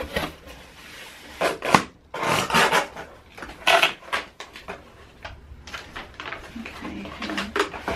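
Cardboard packaging being handled: a boxed lamp sliding and scraping out of a corrugated shipping box, with several short scrapes and rustles of cardboard flaps and insert, the loudest in the first half.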